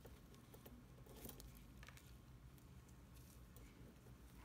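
Near silence: low room hum with a few faint ticks and light rustles of suture and instrument handling as square knot throws are tied.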